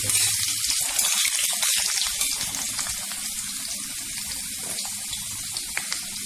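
Potato pieces frying in hot oil in a kadhai: a steady sizzle with small crackles, growing a little quieter over the first few seconds.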